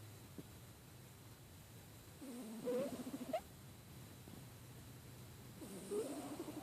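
A pet snoring, congested from a cold: two rattling snores about three and a half seconds apart, one about two seconds in and one near the end, each lasting about a second.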